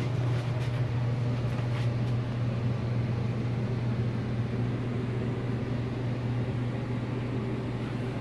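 Steady low mechanical hum of the RV's climate-control equipment running, with a few faint clicks over it.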